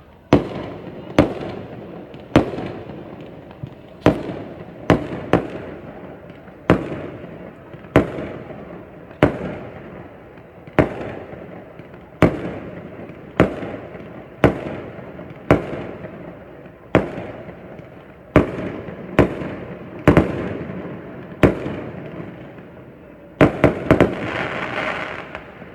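Fireworks bursting overhead: loud, sharp bangs about once a second, each followed by a rolling echo, ending in a quick flurry of several bangs.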